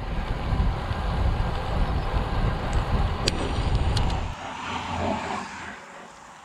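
Wind buffeting the microphone of a camera on a moving bicycle, a dense low rumble that drops away to a quieter hiss a little over four seconds in. A couple of sharp clicks come just before the rumble ends.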